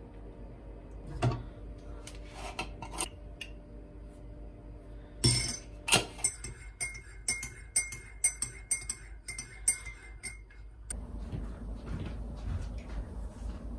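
Sharp metal knocks as a stainless saucepan and tea strainer are set down, then a teaspoon stirring milk tea in a ceramic mug, clinking against the side about twice a second for some four seconds.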